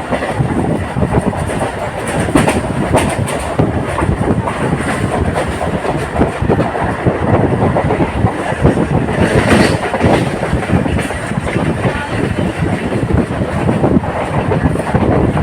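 Indian local passenger train running at speed: a continuous loud rumble and rattle of the coach with many short knocks of the wheels over the rails.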